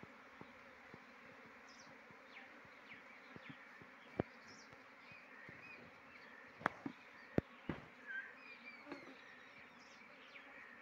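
Honeybees buzzing around an opened hive box, a faint steady hum, broken by a few sharp knocks about four and seven seconds in, with short high chirps over it.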